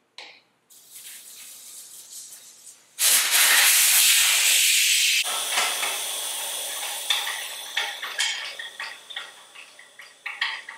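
Air hissing out of a motorcycle tire's valve as it is deflated before the tire is changed. The hiss is moderate at first, becomes much louder about three seconds in, then slowly fades, with a few small clicks near the end.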